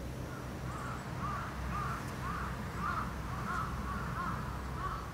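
A crow cawing over and over, about two short caws a second, over a steady low hum.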